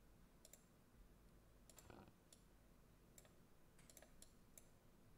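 Faint computer mouse clicks, about nine scattered irregularly, over near-silent room tone.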